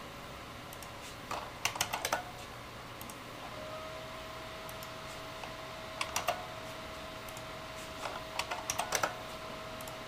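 ASUS Radeon HD 7770 DirectCU graphics card's cooling fan running at a high manual speed, a faint steady hum whose pitch steps up slightly about three and a half seconds in as the fan speed is raised from 70% toward 80%. Over it are three bursts of quick computer mouse clicks, the loudest sounds, as the fan-speed setting is stepped up.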